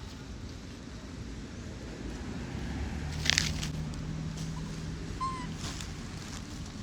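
Outdoor ambience: a sudden short rustle or scrape about three seconds in, a low steady hum for a few seconds through the middle, and one short high animal squeak a couple of seconds later.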